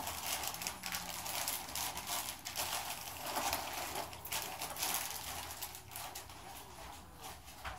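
A person chewing a mouthful of chili burger close to the microphone: irregular wet-sounding chewing with many small clicks and smacks.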